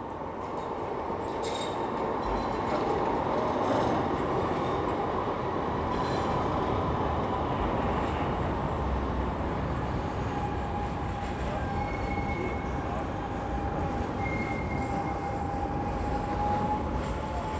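A tram passing close by with a steady running rumble, loudest a few seconds in. Its wheels squeal on the rails in a long, high whine through the second half.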